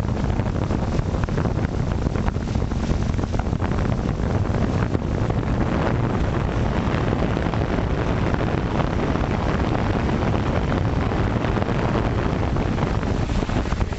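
Steady rushing noise of wind and propeller wash buffeting the onboard camera microphone of an FPV drone as it descends low over tarmac to land.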